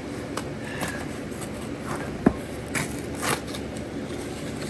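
Cardboard box and packing material being handled while a package is opened: scattered scrapes and rustles, with one sharp knock a little over two seconds in, over a steady low hum.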